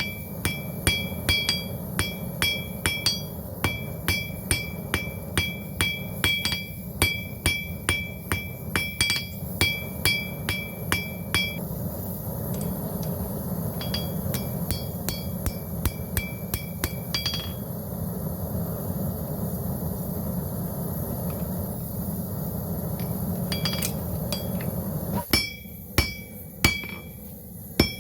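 Blacksmith's hammer striking hot steel on an anvil, about two to three ringing blows a second, thinning out about halfway and stopping for several seconds before the blows resume near the end. A steady low hum sits underneath and stops shortly before the final blows.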